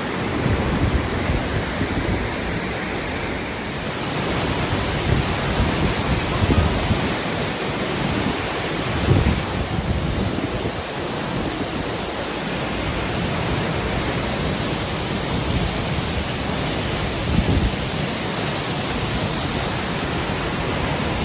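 Waterfall crashing down over a tall rock face: a loud, steady rushing of water that fills out higher up after a few seconds as it gets nearer.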